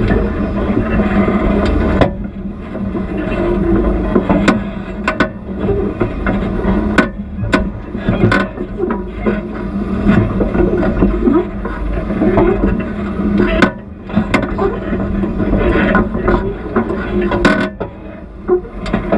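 Off-road vehicle engine running low and steady while crawling over rocks, with irregular sharp knocks and clunks as the vehicle works over the boulders.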